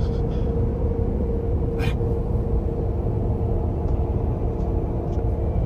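Steady road and tyre rumble inside the cab of a Ford F-150 Tremor pickup cruising at highway speed, with a constant hum running through it. A single short click about two seconds in.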